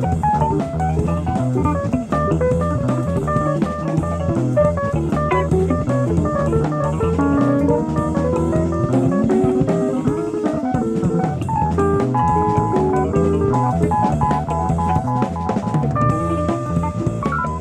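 Live jazz band playing: guitar lines over drum kit and bass, with a note sliding upward about halfway through. It is an FM radio broadcast recorded on cassette tape.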